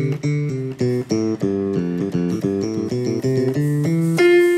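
Yamaha PSR-670 keyboard playing a quick run of single notes on its left-hand bass voice, about five notes a second, ending on one longer held note near the end.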